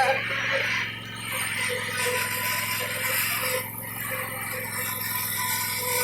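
Zero-turn lawn mower's engine running steadily.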